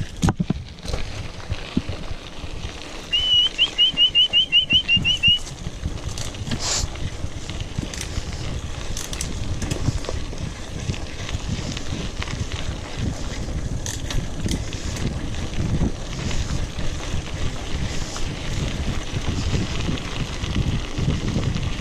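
Wind buffeting the microphone and the rumble of a mountain bike rolling along a trail. A few seconds in, a quick run of about ten high chirps sounds over it.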